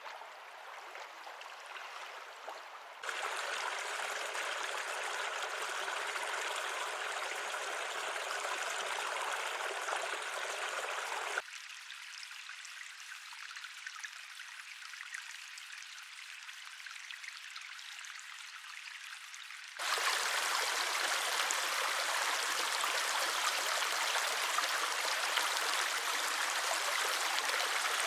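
Running water, a stream or trickle, heard as a series of separate recordings cut together: the sound changes abruptly about three, eleven and twenty seconds in. The stretch from about eleven seconds is thinner and quieter, and the last stretch is the loudest and fullest.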